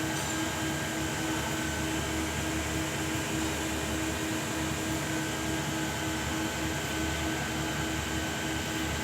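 A machine running steadily: a constant hum with a thin, steady whine over a hiss, unchanging throughout.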